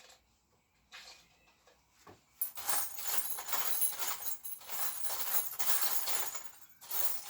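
Small metal hardware being rummaged through by hand, a dense rustling and clinking that starts about two and a half seconds in, breaks off briefly, then resumes near the end.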